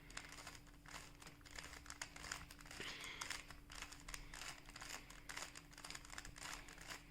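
Plastic Rubik's cube being turned by hand: faint, dense, irregular clicking and clattering as its layers rotate through a repeated move sequence.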